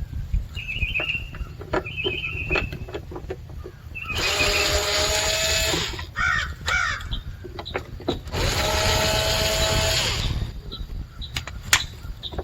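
Power drill/driver running twice for about two seconds each, backing out the screws that hold the actuator motors on a GMT400 HVAC box. Birds chirp in the first few seconds, with scattered clicks of handling.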